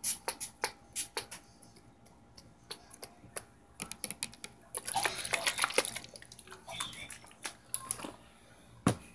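Trigger spray bottle of water pumped in runs of quick squirts, each a short hiss, with pauses between the runs.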